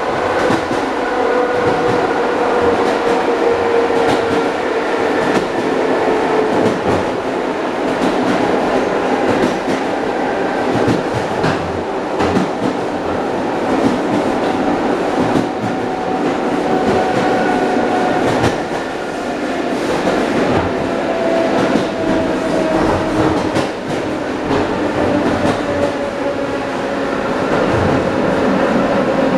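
Wheels of an ED9M electric multiple unit clattering over rail joints at running speed, heard from inside a carriage vestibule, over a steady rumble. A faint whine rises and falls slowly in pitch.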